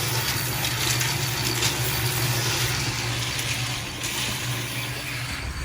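A vehicle travelling on a highway: a steady engine hum under an even rush of road and wind noise.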